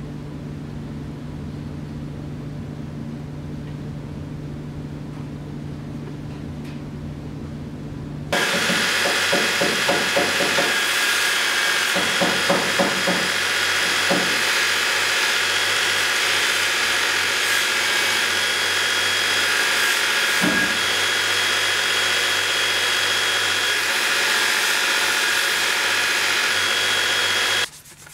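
A steady low hum, then about 8 seconds in an electric belt grinder starts up loud and runs steadily while a leather scabbard is sanded against its belt, cutting off suddenly near the end.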